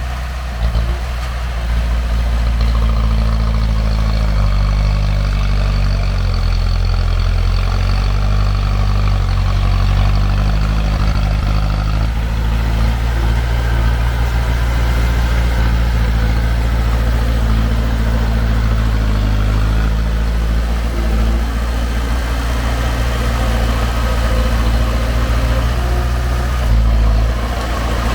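Heavy diesel engine running steadily at low revs, its pitch stepping up and down a few times as the engine speed changes.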